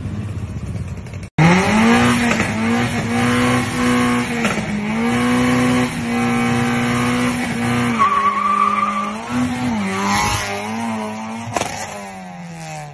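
Car engine revving hard in several long pulls held at high revs, with a short high squeal about eight seconds in. Near the end the engine note falls away as the car pulls off.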